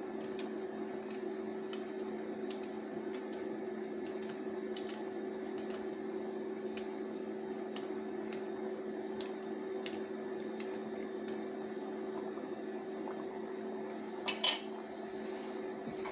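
Steady electrical hum from the hob under the pot, with a string of small sharp snaps, roughly one or two a second, as green chillies are broken into pieces by hand over the simmering pot; the snaps stop about 11 seconds in and a single short clatter comes near the end.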